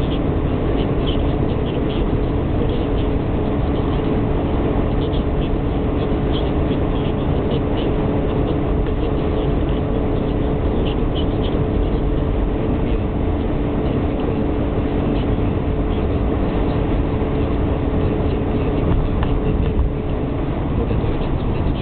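Car engine and tyre noise heard from inside the cabin while cruising at steady motorway speed: a constant drone with a low hum at an unchanging pitch.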